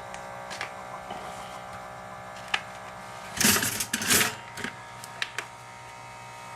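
Steady electrical hum from a running kitchen appliance, with a few light clicks and two short, louder rustling noises about halfway through.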